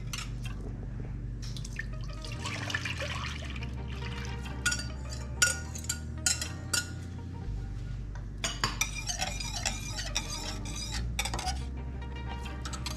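Wire whisk clinking in a bowl of liquid, the liquid poured into a stainless steel saucepan, then quick whisking against the metal pan over the last few seconds. Background music plays under it.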